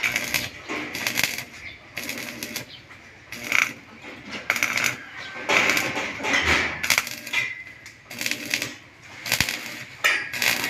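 Stick (arc) welding on steel in short runs: the arc crackles and sputters for half a second or so at a time, then is struck again, about once a second.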